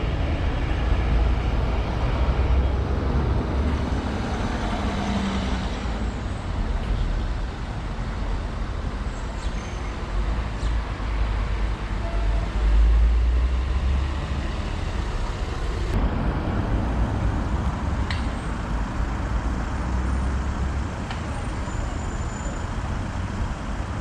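Town street traffic: cars driving past, a steady noise with a deep rumble underneath.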